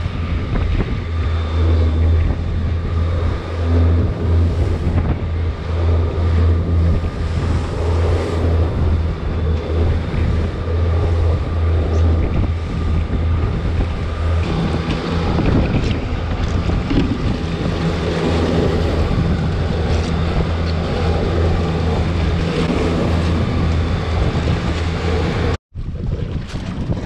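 A fishing boat's engine running steadily as a loud low hum, with wind buffeting the microphone and water noise around it. Near the end the sound drops out for an instant and the engine hum does not return.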